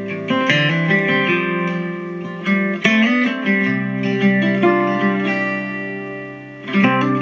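Guitar music with plucked and strummed acoustic guitar, played back through a small outdoor rock-shaped speaker during an audio test. The music thins out briefly about six and a half seconds in, then comes back in.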